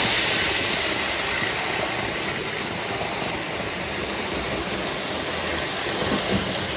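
O gauge model train running on tinplate track: steel wheels and tank cars make a steady rolling rumble. It is loudest at the start as the cars pass close, then eases slightly.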